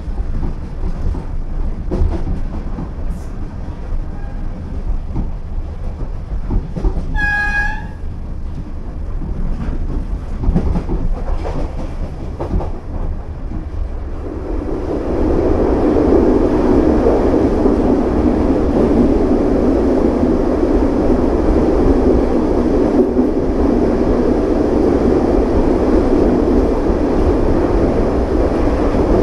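Running noise heard inside a DART electric commuter train carriage: wheels clicking over the rails, with a short horn note about seven seconds in. From about halfway the sound jumps to a louder steady rumble as the train runs into a tunnel.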